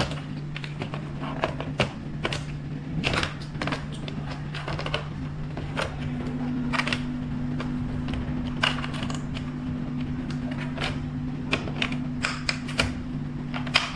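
Scattered clicks and light knocks of hands working with small parts, over a steady low hum; a second, higher hum tone comes in about six seconds in.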